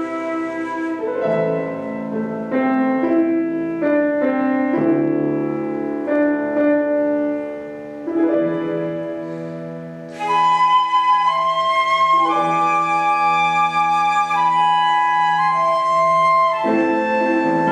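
Instrumental duet playing a melody over sustained chords. The notes are held steady rather than dying away, and the music grows louder and brighter about ten seconds in.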